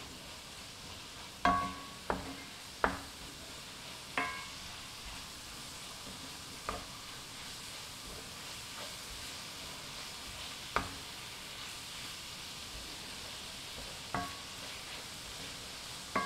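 Ground beef with onion and garlic sizzling steadily in a cast iron skillet as it is stirred with a wooden spoon. The spoon knocks against the pan about eight times at irregular intervals, several knocks ringing briefly.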